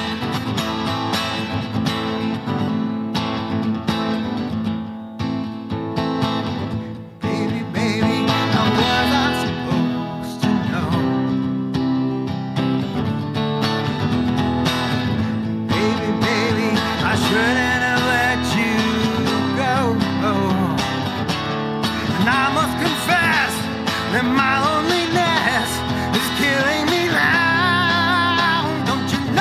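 Acoustic guitar strummed in a steady rhythm, with a brief drop in the playing about seven seconds in. Over roughly the second half, a voice sings along with wavering held notes.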